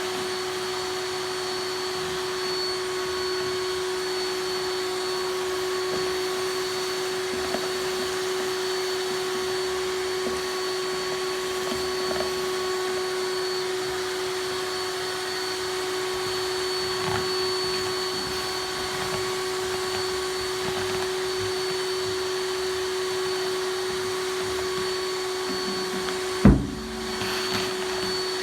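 CNC router spindle running steadily with a constant whine over a rushing hiss while carving wood. A single sharp knock near the end.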